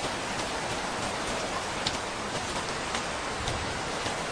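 Steady rain falling: an even hiss with scattered sharper drop taps, one louder tap about two seconds in.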